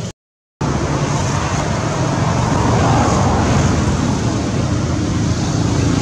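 Steady road traffic noise, a continuous low rumble with hiss, broken by a half-second gap of silence just after the start.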